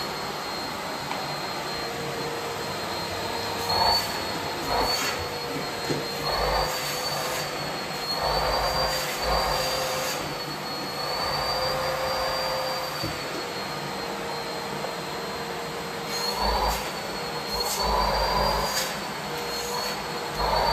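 Bosch bagless canister vacuum cleaner running steadily with a high whine. The whine bends up and down in pitch and rushing, fluttering bursts break in several times as the open hose end is pressed onto and pulled off fluffy slippers and nylon stockings, partly blocking the suction.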